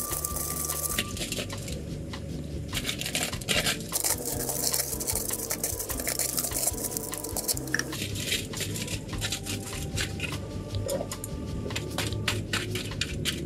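Aluminium foil crinkling as it is pressed into a drop-lid over a saucepan and poked through with wooden chopsticks: many short, irregular crackles.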